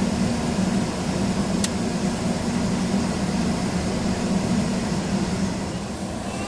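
Steady low machine hum with no change in pitch, and one sharp click about one and a half seconds in.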